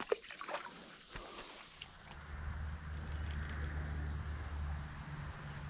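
A few small clicks of tackle being handled, then a fishing reel being cranked in a steady low whirr from about two seconds in until shortly before the end, as the lure is retrieved.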